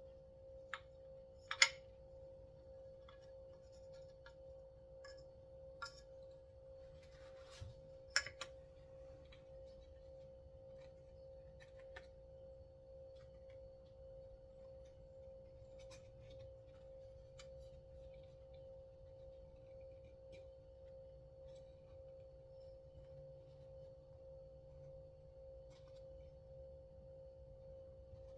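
Light clicks and taps from small metal parts of a chainsaw recoil starter being worked on by hand, the sharpest about a second and a half in and another near eight seconds, then only faint ticks. A steady electrical-sounding hum underneath.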